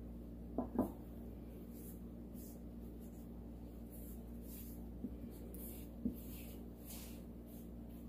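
Gloved hand rubbing and smoothing wet acrylic paint over a canvas, a series of soft swishing strokes. A few light knocks come shortly after the start and again around five and six seconds in.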